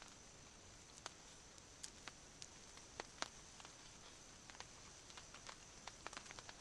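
Near silence broken by faint, scattered small clicks and ticks of eating: a spoon against a plastic plate and chewing, with a cluster of clicks near the end.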